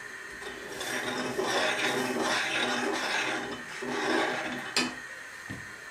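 A metal spoon scraping and stirring in a steel saucepan of milk for about four seconds while honey is worked in, ending with a short tap of the spoon about five seconds in.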